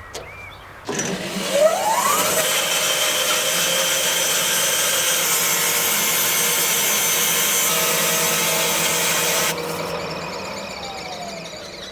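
A power tool starts with a rising whine and runs steadily and loudly for about eight seconds. It is then switched off and winds down with a falling whine.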